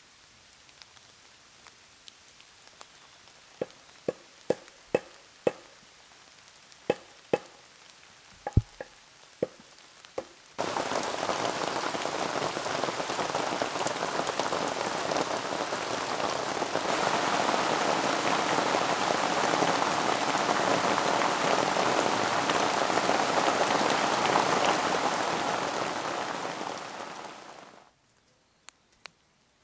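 Single raindrops dripping and plopping at irregular intervals, then steady heavy rain in a forest that comes in suddenly about ten seconds in, grows heavier, and fades out near the end, leaving two last drips.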